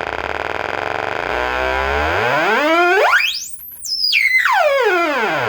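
G10S-50 electronic siren tone through a loudspeaker, buzzy and rich in overtones. It makes one slow rising sweep to a very high pitch about three and a half seconds in, then falls back down.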